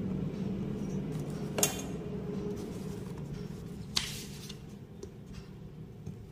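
Steel ruler clinking twice against the paper and table as it is moved and laid down, about one and a half seconds in and again about four seconds in, over a low hum that fades away.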